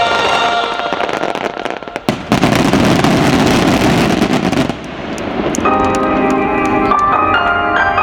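Fireworks: a sharp bang about two seconds in, then a dense crackling of bursting shells for about two and a half seconds. Near the end, the show's music starts up with piano-like notes.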